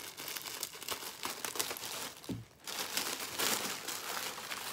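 Clear plastic wrapping crinkling and tearing as it is cut open with scissors and pulled apart, in a rapid string of small crackles that grows denser after a brief pause about two seconds in.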